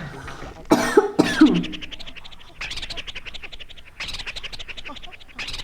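A person coughing as a blade of grass tickles the inside of the nose to bring on a sneeze: two loud bursts about a second in, then a run of quick rasping breaths.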